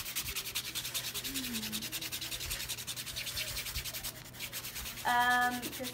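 A nail buffer rubbing quickly back and forth over a dip powder nail in fast, even strokes. The strokes stop about four seconds in.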